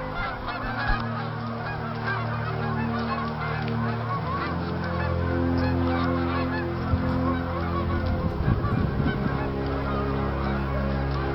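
A large flock of birds calling without a break, many calls overlapping. Underneath runs a steady low drone whose pitch shifts a couple of times.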